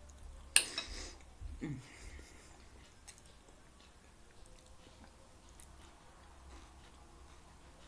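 Eating close to the microphone: a forkful of taco gratin taken and chewed. A sharp, loud noisy burst comes about half a second in, then faint chewing with small scattered mouth clicks.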